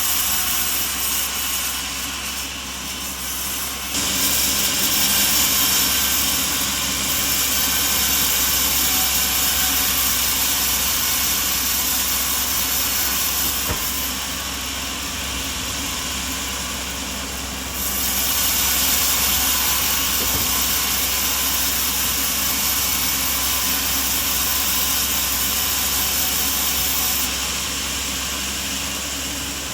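Sawmill running with an engine hum underneath while its saw cuts through a coconut log, giving a loud steady hiss. The cutting noise swells about four seconds in, eases a little before the middle, swells again about eighteen seconds in and eases a few seconds before the end.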